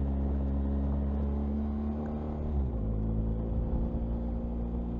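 BMW R1250 GS boxer-twin motorcycle engine running under way, heard from the rider's helmet camera, its note steady and then dropping in pitch about halfway through.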